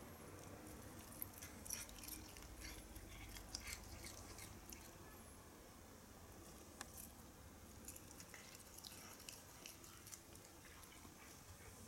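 A cat biting and chewing blades of grass: faint, crisp crunching clicks in quick clusters, busiest in the first few seconds and again in the second half.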